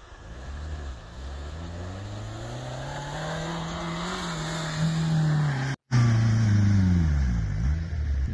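An off-road SUV's engine revving hard under load as it climbs a steep sand slope, rising in pitch over the first few seconds and holding high. The sound cuts out for a split second past the middle, comes back louder, then the revs drop near the end.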